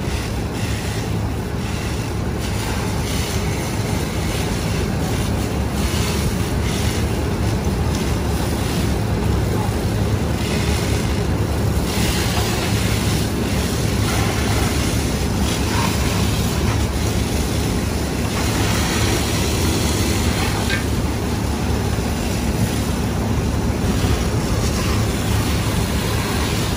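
Fire hose stream spraying with a steady hiss onto the smoking rear hopper of a burning garbage truck, over the continuous low rumble of a heavy engine running.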